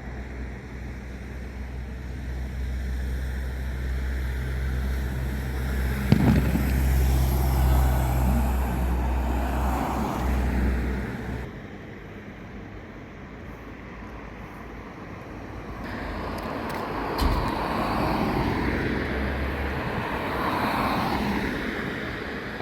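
Road vehicles: a steady low engine rumble with a sharp knock about six seconds in, then the rumble drops away about halfway through and another vehicle's road noise swells and fades near the end.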